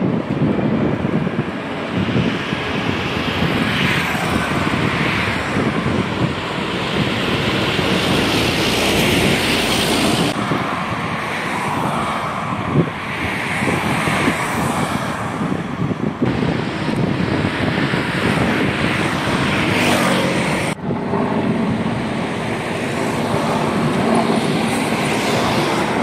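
Road traffic noise: a steady rush of passing vehicles, changing abruptly about ten and twenty-one seconds in.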